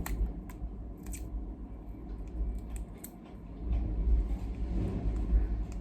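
Fingernails picking at the seal sticker on a plastic eyeshadow case, with scattered small clicks and rustling over a low hum.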